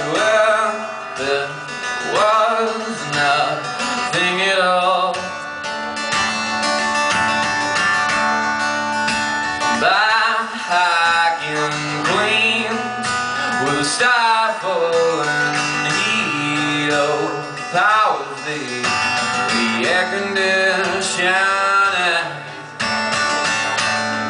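Live solo performance: a man singing into a microphone while strumming and picking his own guitar, the voice gliding and holding notes over sustained chords.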